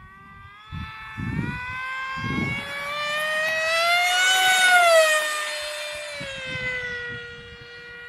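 Electric FPV flying wing's brushless motor and propeller whining as it flies past: the pitch and volume rise to a peak about four to five seconds in, then drop and settle into a steady, lower whine. Wind gusts rumble on the microphone in the first few seconds.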